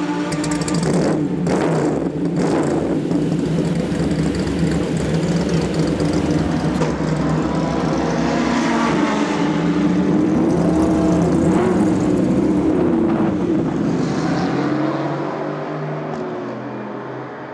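The 3.5-litre Buick-based V8 of a Group 2 Rover SD1 touring car, breathing through Weber carburettors, running and revving up and down. It gets somewhat quieter near the end.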